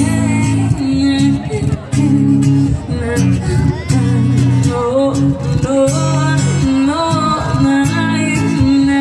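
Live pop band playing through the concert PA: guitar over heavy, booming bass notes, with a voice singing the melody.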